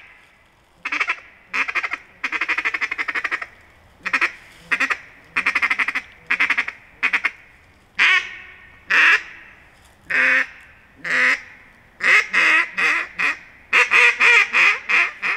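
A JJ Lares Hybrid duck call blown to imitate a mallard hen: separate quacks and drawn-out, buzzing runs of notes with short gaps between them, then quick strings of quacks near the end.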